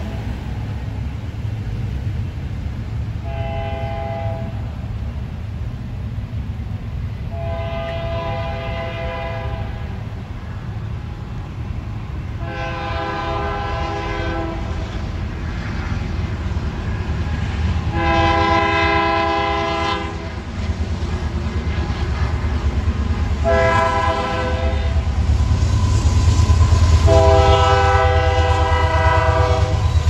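Union Pacific GE AC44CW diesel locomotive sounding its multi-note air horn in a series of long and short blasts, six in all, as a grade-crossing warning. The deep rumble of the approaching train grows louder toward the end.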